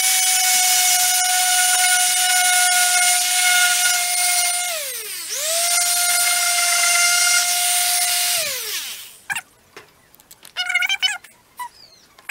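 Electric random orbit sander running with a steady high whine while sanding a plastic ATV fender. About five seconds in its speed drops briefly and picks back up, and around eight and a half seconds in it is switched off and winds down, followed by a few light clicks as it is set down.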